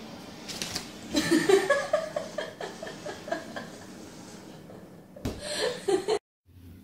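A person laughing in a long run of quick chuckles, then a sharp thump and a second short burst of laughter near the end, cut off suddenly.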